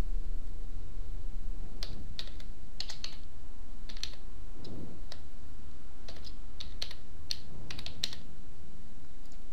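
Typing on a computer keyboard: a run of irregular key clicks that starts about two seconds in and stops near the end, over a steady low hum.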